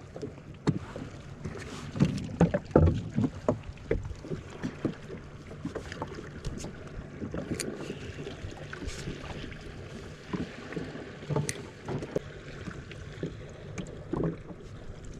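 Small boat lying on open sea, water lapping at the hull, with scattered knocks and clatter as fishing tackle is handled aboard.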